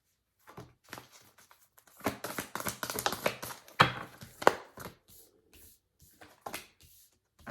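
A deck of oracle cards being shuffled and handled by hand: quick, fast-running card clicks and rustles, thickest about two seconds in, with two sharper taps just after the middle.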